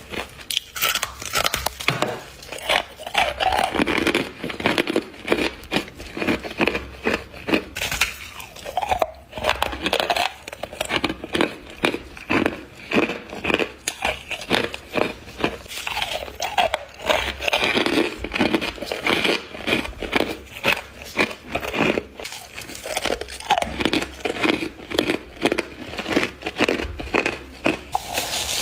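Close-miked biting and chewing of humidifier frost: a dense, continuous run of crisp crunches, several a second.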